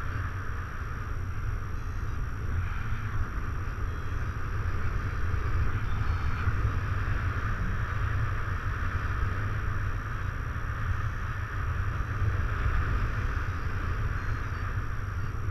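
Airflow from the paraglider's flight buffeting the camera's microphone: a steady low rumble of wind noise with a hiss over it.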